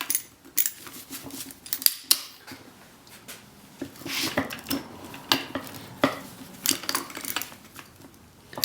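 Irregular metal clinks, rattles and scrapes as the old steel cable is pulled out of a Warn XL3000 ATV winch's drum, its end freed from the pin it loops around.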